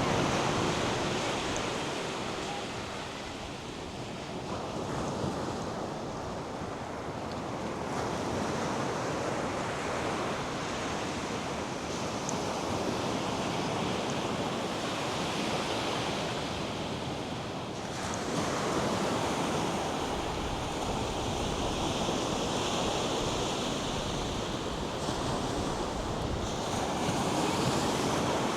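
North Sea surf washing onto a sandy beach: a continuous roar of breaking waves that swells and eases, with wind buffeting the microphone.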